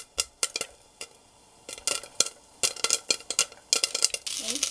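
Popcorn kernels popping in butter in a frying pan under a glass lid: sharp pops at an irregular pace, some in quick clusters. The pan's sizzling grows into a steady hiss near the end.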